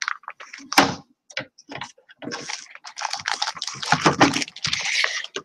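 Loose laser-cut wood pieces and paper sheets being handled on a tabletop. First come light clicks and knocks, then a steady rustle of paper from about two seconds in, with a few low knocks.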